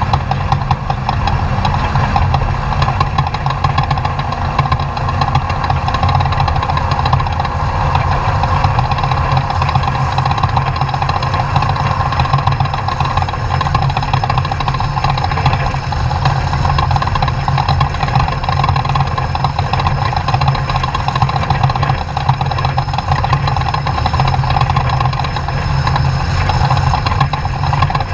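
Off-road race truck's engine running loud and steady, without breaks or big changes in pitch.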